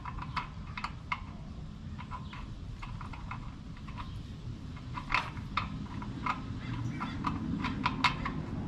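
Scattered light metallic clicks and taps, a few sharper ones in the middle and near the end, as the drain plug with a new crush washer is threaded back into the sump plate of a 1983 Porsche 911SC by hand, over a steady low hum.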